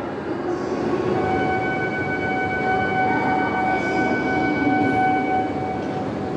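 Steady electronic warning tone sounding for about four and a half seconds as the doors of a JR East E5 series Shinkansen slide shut before departure. It starts about a second in and stops shortly before the end, over a constant low station rumble.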